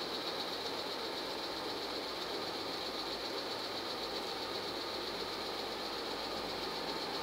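A steady mechanical hum with a high hiss, unchanging throughout, like a fan or appliance running.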